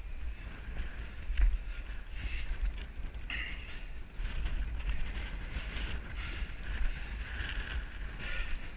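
Wind buffeting the microphone of a body-worn camera: a rumble that swells in gusts, loudest about one and a half seconds in and again near seven seconds.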